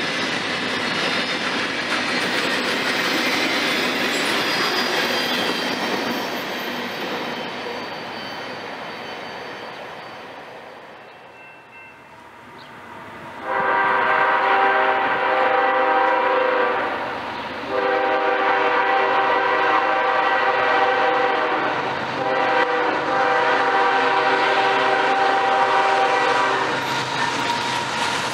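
Freight cars rolling past on jointed rail, fading away. Then, after a cut, an approaching CSX GE freight locomotive sounds its multi-chime air horn for a grade crossing: a chord of several notes in long blasts with short breaks.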